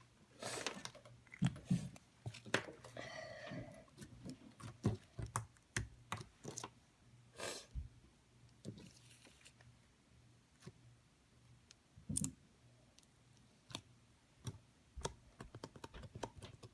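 Light pink slime being squeezed and stretched by hand, giving irregular clicks and pops.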